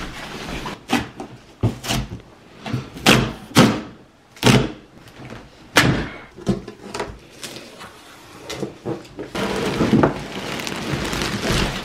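A series of thumps and knocks as a large cardboard box is handled and opened, followed by a steady rustle of plastic wrapping as the car seat is pulled out, starting about nine seconds in.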